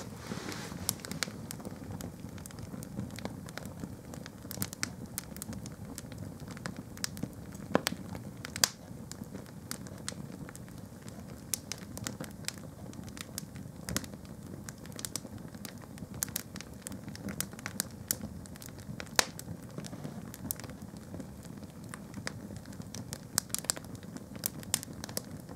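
Plimsolls burning on a fire grate: a steady low rush of flame with irregular sharp crackles and pops.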